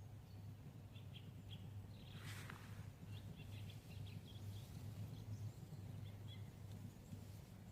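Small woodland birds chirping faintly in short high calls over a steady low background hum, with one brief rustle about two and a half seconds in.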